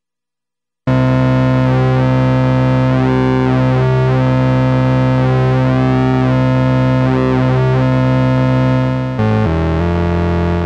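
Vintage Korg MS-20 analog monosynth holding a note that starts about a second in, its tone sweeping as the mod wheel modulates the pulse width of the oscillator's pulse wave. About nine seconds in it drops to a lower note and fades.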